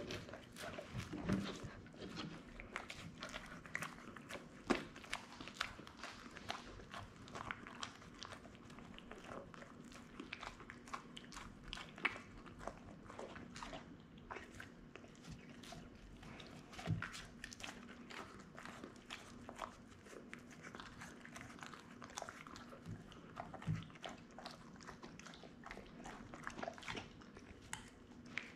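American Akita chewing and biting into a cheeseburger close to the microphone. Irregular smacking and clicking mouth noises, with a few louder bites now and then.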